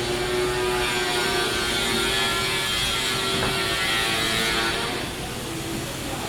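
Factory machinery running steadily, a dense mechanical clatter with several steady whining tones, easing somewhat about five seconds in.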